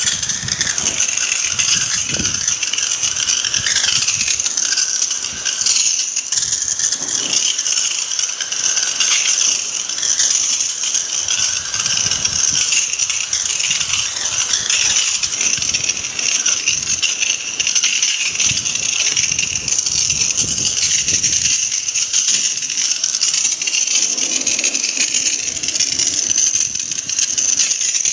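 High-pressure water jet spraying onto a window-type air conditioner's metal chassis and coil during cleaning: a steady, loud hiss with occasional low knocks.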